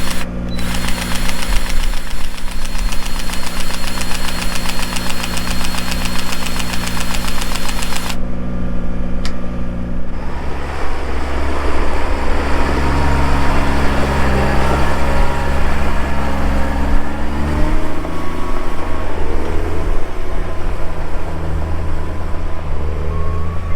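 Tractor diesel engine running steadily, its sound changing abruptly about eight to ten seconds in.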